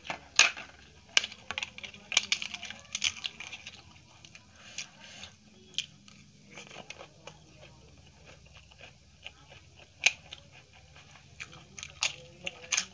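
Close-up eating sounds: mouth chewing of curry and rice with a series of sharp crisp crunches as papad is bitten, the crunches clustered early and again near the end.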